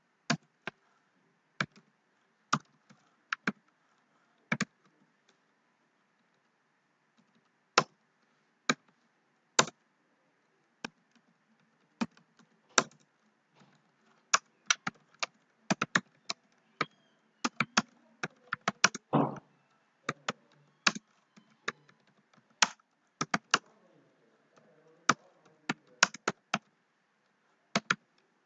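Typing on a computer keyboard: irregular single keystrokes and short quick runs of keys, with pauses between them.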